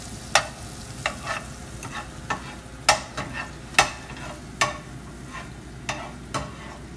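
Garlic frying in melted butter in a nonstick pan: a steady sizzle broken by a dozen or so sharp pops and clicks at uneven intervals, while a plastic slotted spatula stirs it.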